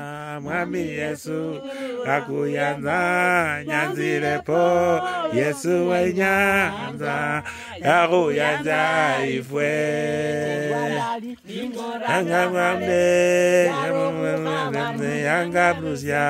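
Women singing a song together without instruments, in long held notes with a wavering pitch.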